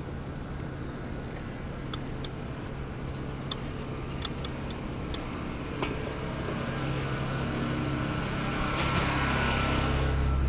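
City street traffic: a steady hum of vehicle engines, swelling toward the end as a vehicle passes close about nine seconds in. A few light clicks come in the first half.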